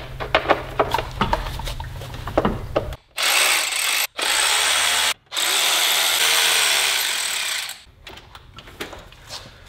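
DeWalt cordless ratchet running in three bursts, about a second, a second, then two and a half seconds, undoing screws. Before the bursts come clicks and knocks of tool handling.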